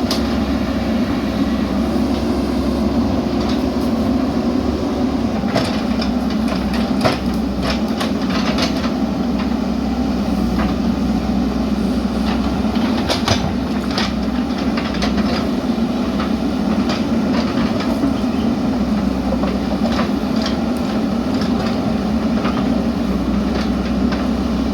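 JCB backhoe loader's diesel engine running steadily under work, with scattered clanks and knocks that cluster several seconds in, again around the middle, and late on.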